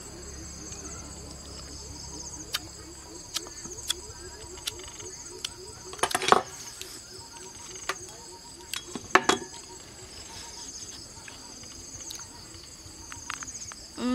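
Insects chirring steadily in a high-pitched chorus, with scattered sharp clicks and two louder bursts of crunching about six and nine seconds in as a knife cuts into a red cashew apple.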